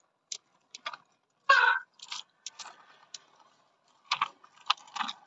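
Irregular clicks and light rattles, with one louder, longer rattle about a second and a half in.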